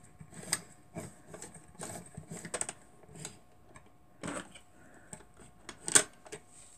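Scattered light clicks and taps from hands working a sewing machine's needle and bobbin area, drawing up the bobbin thread. One sharper click comes near the end.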